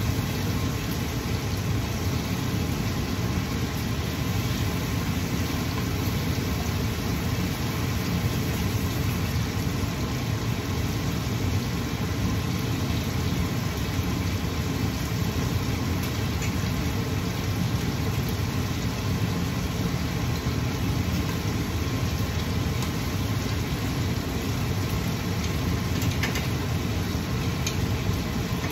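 Steady low rumble of a kitchen range hood exhaust fan running over a gas stove, unchanging throughout.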